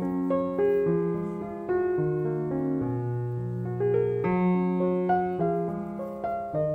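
Background music: a piano playing a slow, gentle melody over sustained chords.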